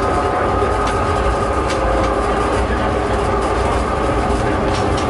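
A vehicle running steadily, heard from inside: a constant low drone with a few steady tones over it and a few faint clicks.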